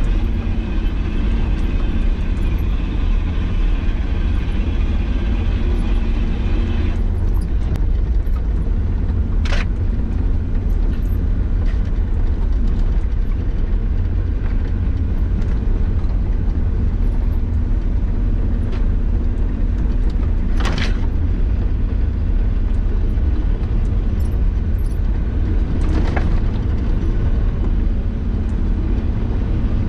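Nissan Patrol Y60 driving off-road: a steady low engine and drivetrain rumble, with three brief sharp knocks or creaks spread through it.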